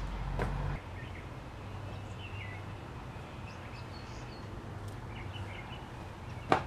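Outdoor yard ambience: a steady low background rumble with a few faint bird chirps in the middle, and one sharp tap near the end.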